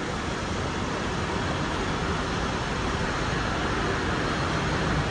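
Steady street traffic noise, the even hum of road vehicles going by.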